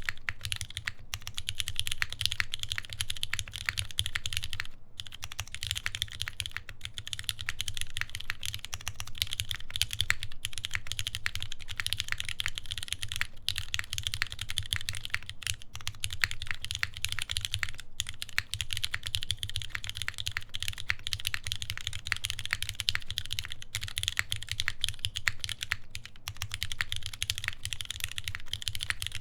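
Continuous typing on a Keycult No. 1 Rev. 2 TKL mechanical keyboard with lubed vintage Cherry MX Black linear switches, an aluminium plate and GMK keycaps: a dense run of keystroke clacks, broken by a brief pause about five seconds in.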